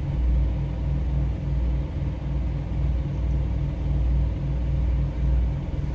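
Semi truck's diesel engine idling, a steady low rumble with a regular throb, heard from inside the cab.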